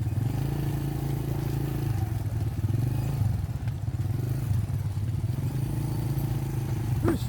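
Small motorcycle engine running steadily with a low drone. A short, sharp rising squeal comes near the end.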